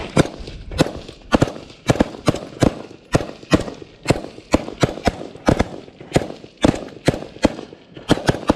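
Rifle gunfire at close range: single shots fired in quick succession, about three a second, with no pause.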